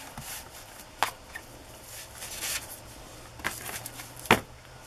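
Handling of fabric and cardboard book covers on a cutting mat: soft rustling and sliding, with a sharp tap about a second in and a louder tap near the end as a cover is set down or knocked against the table.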